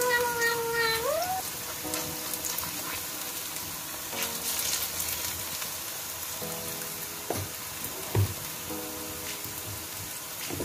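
Tortang pechay patties of corned beef, chopped pechay and egg frying in shallow oil in a stainless steel pan, a steady crackling sizzle. Two light knocks come in the second half.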